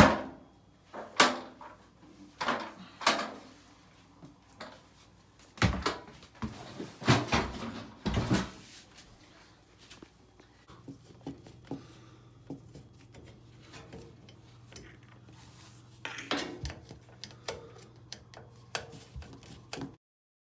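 Knocks and clatters of the plastic front panel and other parts being handled on a partly dismantled Samsung front-loading washing machine. The knocks are scattered and loudest in the first half, and a few more come about two thirds of the way in.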